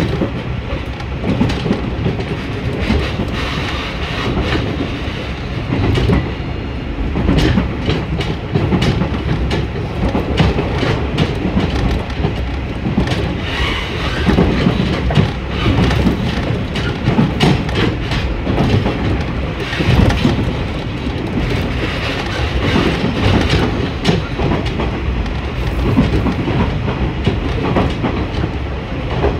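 Ride noise inside a JR Tsuyama Line diesel railcar running at speed: a steady rumble from the train, with the wheels clicking over rail joints again and again.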